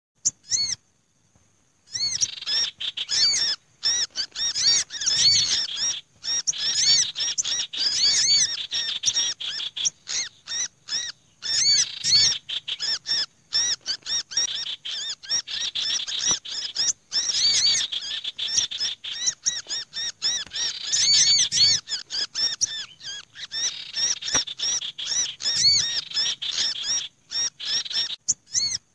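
Bird-lure recording of several small birds chirping and chattering at once, a mix of a sirtu's chattering, a sogok ontong's busy calls and a kehicap ranting's "kejepit" distress calls, the cries of a held bird used to draw small birds down. After a brief chirp at the start and a short pause, the calling runs thick and nearly unbroken.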